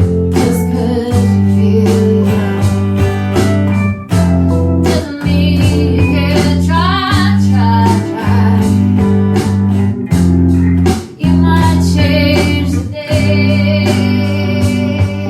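A band playing a song together: guitar over sustained low bass notes that change every second or two, with a steady drum beat. A wavering melody line comes in about halfway through.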